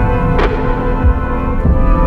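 Background music with sustained chords, a heavy low end and a sharp hit about half a second in.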